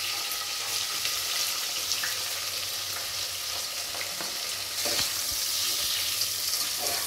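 Sliced onions sizzling as they go into hot ghee and oil in a pressure cooker, with a steady frying hiss. A slotted metal spoon scrapes and clicks a few times about four to five seconds in as the onions are stirred.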